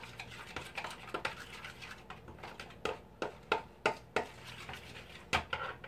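Metal fork stirring ketchup sauce in a plastic mixing bowl: irregular soft scrapes and sharp clicks as the fork knocks the bowl's sides, louder taps in the second half, over a faint steady low hum.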